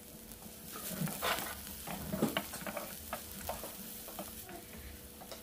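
Chopped shallots and garlic sizzling in a little oil in a nonstick frying pan. From about a second in, a wooden spatula stirs them with irregular scrapes and taps against the pan.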